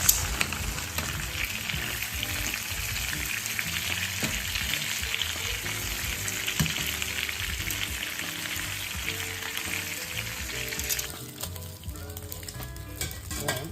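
Pieces of fish frying in hot oil, a steady sizzle that drops away abruptly about eleven seconds in. Soft background music plays underneath.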